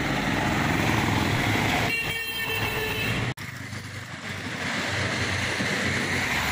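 Road traffic passing, with a vehicle horn sounding for about a second around two seconds in. The sound drops out abruptly a little after three seconds, then a steady rushing noise continues.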